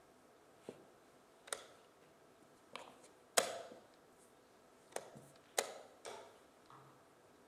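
Blitz chess being played: wooden chess pieces knocked down on the board and the chess clock's buttons slapped in turn. About seven sharp knocks come at uneven spacing, the loudest about halfway through.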